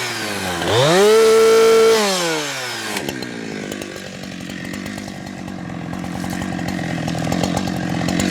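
Chainsaw engine revved up sharply about a second in, held at high revs for about a second, then let back down to a lower, rougher running.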